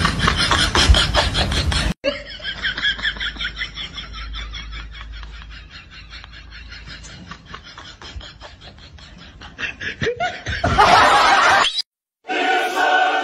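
Laughter in quick repeated pulses that fades over several seconds. Then a short loud noisy burst, a brief gap, and music with a choir starting near the end.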